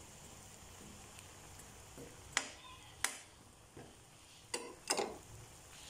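A metal spoon knocking against the cooking pan: about five sharp taps, starting about two seconds in, while stirring potato chunks into the simmering beef.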